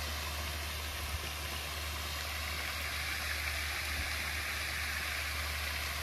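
Pond fountains splashing steadily, a continuous rush of falling water, with a steady low hum underneath.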